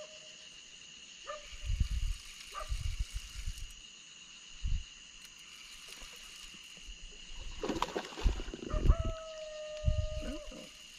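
Low thumps and knocks on a boat while a fish, taken for a gar, is played on rod and reel, with several short whining calls, the longest held about a second and a half near the end. A steady high-pitched buzz runs underneath throughout.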